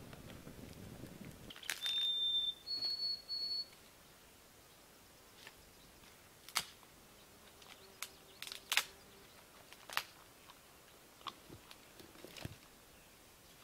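Three short high electronic beeps close together, the last two slightly higher than the first. After them come scattered light clicks and knocks of gear being handled at a campsite.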